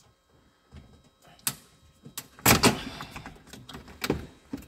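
Scattered clicks and knocks from hands working plastic trim clips, with one louder short clatter about halfway through.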